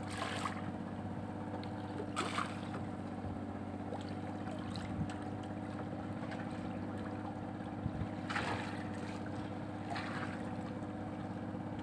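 A boat's motor runs steadily with a low, even drone. Over it come a few brief rushes of splashing water, the first right at the start as a hooked fish breaks the surface beside the hull.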